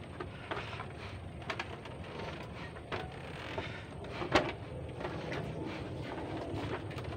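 Footsteps on a slatted bamboo platform: scattered light knocks and creaks over a steady low rumble, with one sharper knock about four seconds in.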